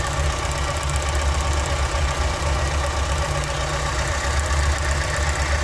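Car engine idling, with a fast ticking of high-voltage sparks arcing from chafed spark plug wires onto the engine: the arcing makes the engine misfire.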